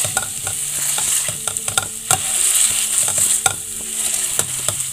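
Metal masher pressing and scraping softened onion, capsicum and tomato in a frying pan, with repeated irregular clicks of the masher against the pan over a steady sizzle of frying.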